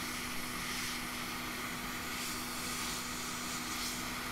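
Hot air rework station blowing steadily at full airflow, with a steady hum under the hiss, as its nozzle heats a phone logic board to melt the solder holding an EMI shield.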